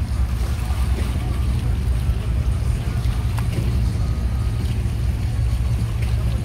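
Boat engine running with a steady low rumble under a wash of water and wind noise.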